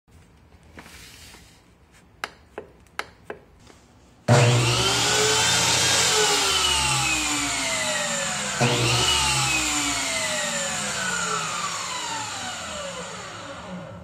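A few light clicks, then a table saw's motor starts suddenly and runs up in pitch before coasting down. About halfway through it is started again, briefly picks up, then spins down in steadily falling pitch until it has nearly stopped near the end. The pattern fits a momentary foot switch: pressed to start, released to stop.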